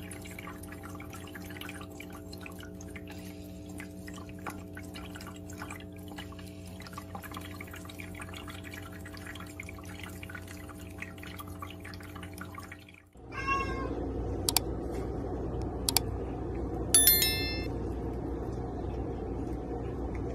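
Water-drop pet fountain humming steadily with faint dripping ticks. Then, after an abrupt change about two-thirds through, a cat meows briefly twice over room noise, with a few sharp clicks.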